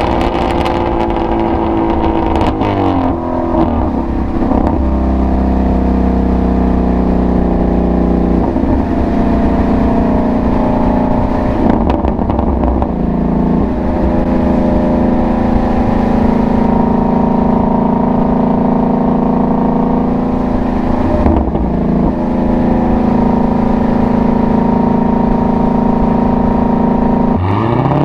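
Ford Mustang Shelby GT350's V8 exhaust while driving, mostly at steady revs. The engine note shifts briefly about 3 seconds in and again about 21 seconds in, then rises sharply in pitch near the end as the engine revs up.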